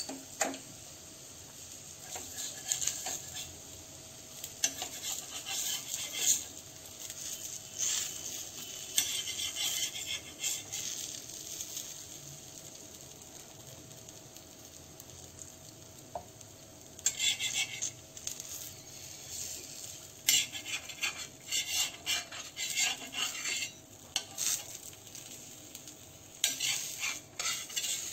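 Patishapta crêpe sizzling steadily in a hot frying pan, with a metal spatula scraping and clinking against the pan in repeated bursts as the filled crêpe is folded and rolled.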